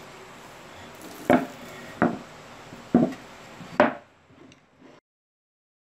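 Four sharp knocks of wood on wood, about a second apart, as pieces of wood are handled on a plywood workbench.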